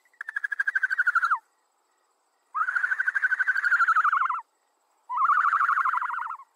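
A bird calling three times, each call a fast trill held at a steady high pitch for one to two seconds. The first call drops in pitch at its end.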